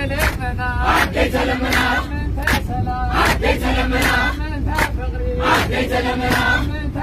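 A busload of people singing an Eritrean Orthodox praise hymn (wedase) together, with hand claps keeping time, over the bus engine's steady low rumble.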